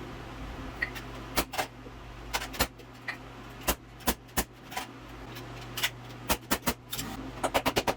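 A string of sharp knocks and clicks from carpentry work on wooden stairs, scattered at first and coming in a quick run near the end, over a steady low hum.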